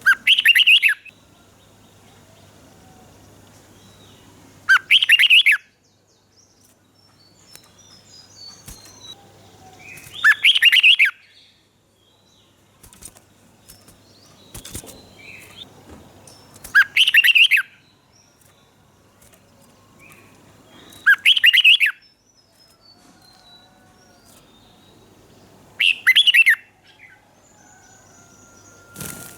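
Red-whiskered bulbul singing: six short, loud, warbling song phrases, each about a second long and spaced roughly every five seconds, with softer chirps between them.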